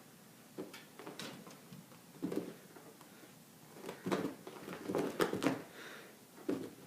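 Cats' paws thudding and scrabbling on the floor in irregular bursts as they chase a laser pointer dot, busiest from about four to five and a half seconds in.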